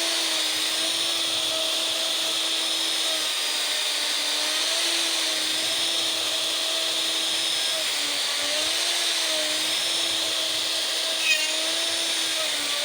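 Makita router running steadily, its roar a high whine over hiss, as it levels the face of an end-grain elm slab. The pitch wavers and dips slightly now and then, and there is one brief sharp tick about 11 seconds in.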